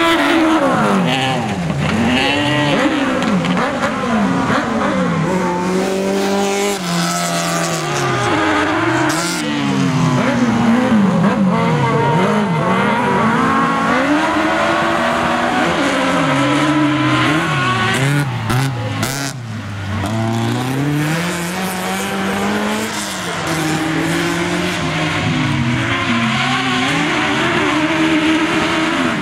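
Autocross race car engines on a dirt track, two cars at once, revving hard: the engine pitch climbs and drops again and again as they accelerate and lift through the corners, with a brief drop in loudness about twenty seconds in.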